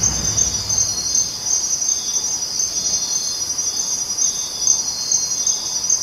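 Insects trilling in a steady, high-pitched chorus.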